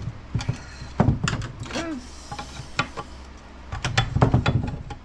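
Irregular clicks, clinks and knocks of hand tools against metal as a large snap ring is worked at in an NP241C transfer case, clustered in two bursts, about a second in and near four seconds.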